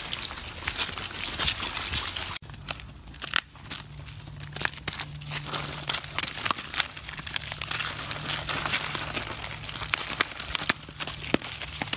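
Monkeys feeding: crunching and snapping of fresh pea pods, then, after an abrupt change about two and a half seconds in, rapid irregular crinkling and tearing of the plastic wrappers on packaged snack cakes as the monkeys grab and handle them.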